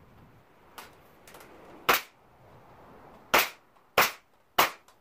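Pneumatic nail gun firing nails into the corner of a wooden window frame: four sharp shots, one about two seconds in and three close together near the end, with a few faint clicks before.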